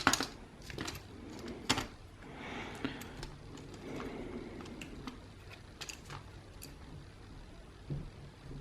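Small plastic parts of a disassembled Xbox One controller clicking and tapping as they are handled, with soft rustling between them. The clicks are scattered and irregular, the sharpest right at the start and a little under two seconds in.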